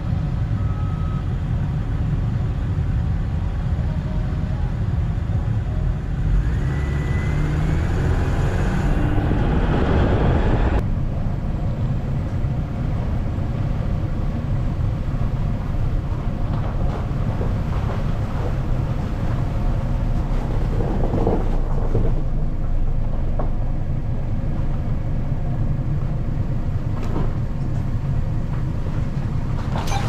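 Steady low rumble of a car's engine and tyres on a snow-covered road, heard from inside the cabin. A rising whine builds from about seven to ten seconds in, then the sound changes abruptly and the rumble carries on.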